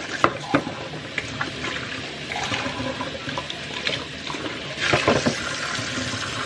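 Kitchen tap running into a stainless steel sink as a plastic cup is rinsed under the stream, with light knocks of the cup and a louder splash about five seconds in.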